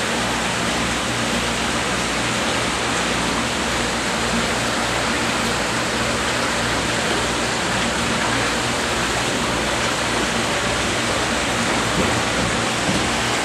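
Steady rushing hiss of water circulating and bubbling in a live-fish tank, with a faint low hum beneath it.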